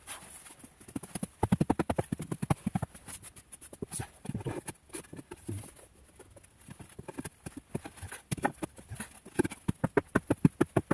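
Rapid scraping and knocking of sand being cleared by gloved hand and a wooden board from the rim of a board-lined pit in a sandy floor, in three quick spells of strokes.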